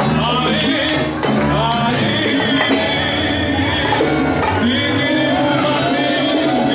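Live salsa band playing: a man singing into a microphone over electric bass and congas, with timbales and cymbal.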